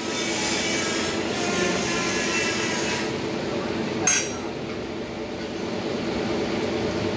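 Steel gearbox parts being handled and fitted: scraping and rubbing of metal for the first few seconds, then one sharp metallic clink about four seconds in, over a steady background hum.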